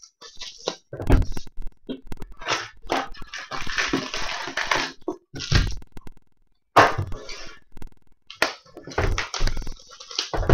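Sports card packs being handled and torn open on a tabletop. The pack wrapper crinkles and tears in two longer stretches, about three seconds in and again near the end, between short knocks and thuds as packs and cards are set down on the table.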